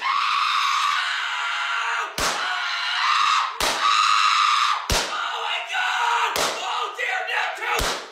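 Loud, distorted screaming with five sharp bangs about a second and a half apart.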